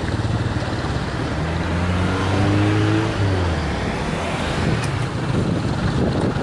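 Motorcycles and a light truck running across a level crossing in steady traffic. One engine revs up with a rising note about two seconds in and drops away just after three seconds.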